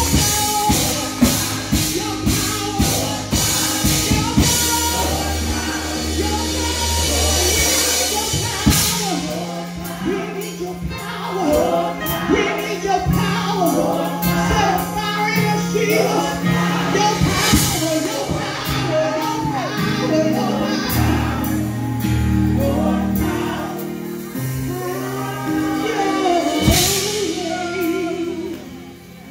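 Live gospel praise-and-worship music: a woman lead singer and a group of backing singers sing over a band. Drums and cymbals play busily for the first eight seconds or so, then ease off, leaving held bass notes under the voices.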